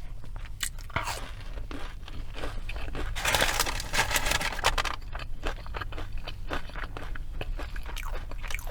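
Close-miked eating of fast food: chewing and crisp bites, with a denser stretch of crunching about halfway through.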